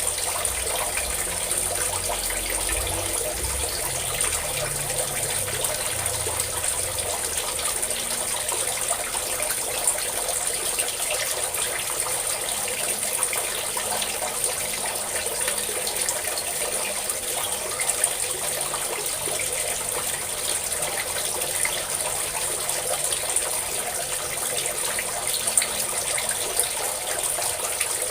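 Water pouring in a steady stream, a continuous splashing rush with a constant high hiss above it.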